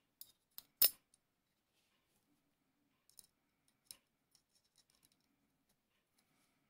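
Small metal clicks and taps as the steel parts of a miniature Circassian miquelet flintlock are fitted together by hand. The loudest click comes a little under a second in, with a few more around three to four seconds and faint ticks after.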